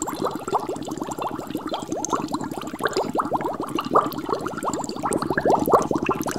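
Air bubbles in water: a dense, steady stream of quick bubbling blips, each rising in pitch.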